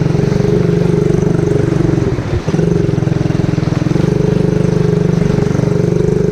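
ATV engine running steadily under throttle while riding through mud and water, with a brief drop in the engine note about two seconds in before it picks back up.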